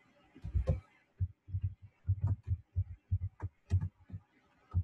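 Computer keyboard being typed on: irregular keystrokes, each a dull thud with a faint click on top.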